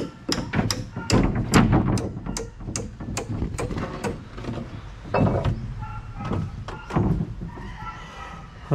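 Hammer blows on boat timber, struck steadily at about two to three a second for the first few seconds, then a few scattered blows after a short pause.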